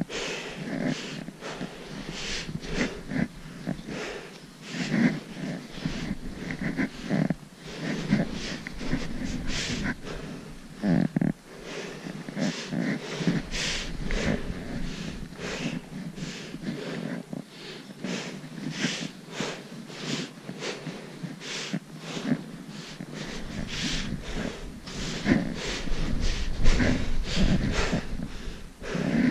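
Footsteps crunching through packed snow with trekking poles planted alongside, about two crunches a second in a steady walking rhythm. A low rumble joins in near the end.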